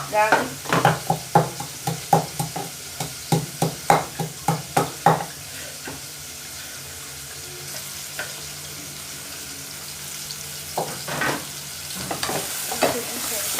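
Beans frying in a pan with a steady sizzle while a spoon stirs and scrapes them, striking the pan in quick clatters. The stirring runs for the first five seconds, stops for about five seconds of plain sizzling, and starts again near the end.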